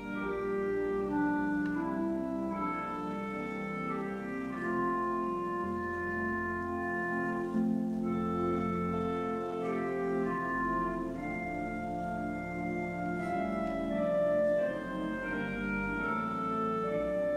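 Church organ playing a slow piece of held chords that change every second or so, with deep bass notes sounding beneath.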